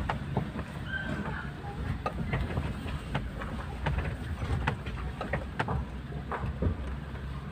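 A car rolling slowly over rough gravel ground, heard from inside the cabin: a steady low rumble of engine and tyres with irregular clicks and knocks.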